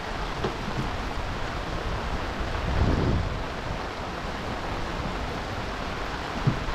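Heavy rain falling steadily, heard as an even hiss. There is a swell of low rumble about three seconds in and a brief low thump near the end.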